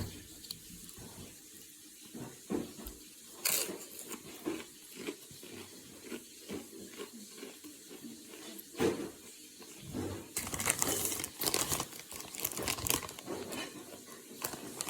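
Crunching and chewing of PopCorners sweet and salty popped-corn chips: irregular crisp crunches, with a denser run of crunching about ten seconds in.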